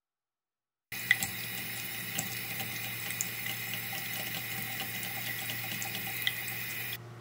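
Washbasin tap running a thin stream of water into the drain, starting suddenly about a second in and cutting off just before the end, with a few light ticks over it.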